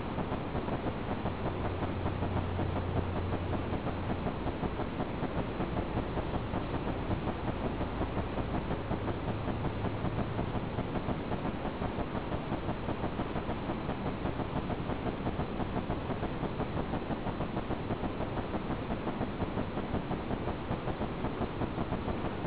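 Automatic chain link fence machine running, a steady, rapid mechanical clatter as it weaves wire mesh, with a low hum rising briefly twice.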